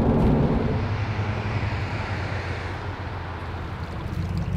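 Steady road noise and low rumble of a Toyota Tundra pickup moving at speed, heard inside the cab, getting gradually quieter.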